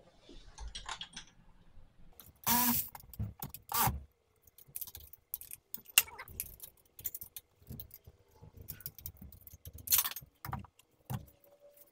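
Metal tools and hardware clinking and knocking as a bolt by the alternator is tightened in a V8 engine bay, with a few short, louder bursts about two and a half, four and ten seconds in.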